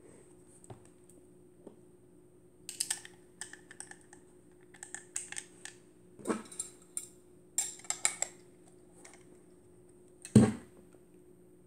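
Handling noise of a Foca PF2B metal rangefinder camera being turned over in the hands: scattered clusters of light clicks and rattles, with one louder knock about ten seconds in.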